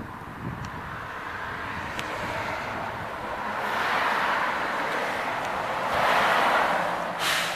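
Road traffic going by: rushing tyre noise that swells twice, about four seconds in and again about six seconds in, then a short sharp hiss near the end.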